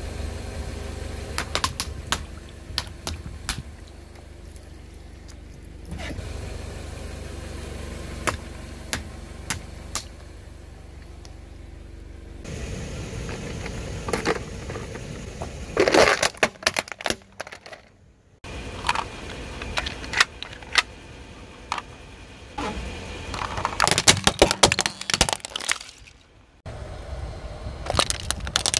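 A car tyre rolls slowly over a series of objects and crushes them, in several short clips one after another: sharp cracks, snaps and pops of plastic and water balloons giving way, with the car's engine running low in the first clip. The loudest cracks come about halfway through, as a hard plastic toy car is crushed, and again a few seconds later.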